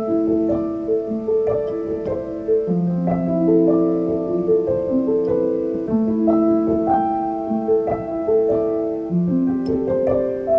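Background piano music: a gentle melody of held notes, one after another.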